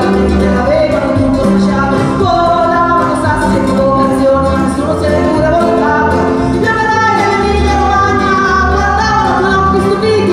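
Live folk music: a woman sings in Italian over a piano accordion, with double bass notes underneath and guitar.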